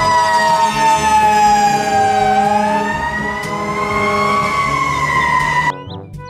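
Fire engine siren wailing in one slow cycle: the tone falls, rises again, holds briefly, then cuts off suddenly near the end.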